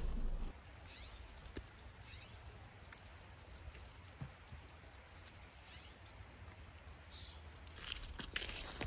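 Quiet outdoor background with a few faint high chirps. From about eight seconds in, dry fallen leaves crunch and crackle underfoot as someone walks on them.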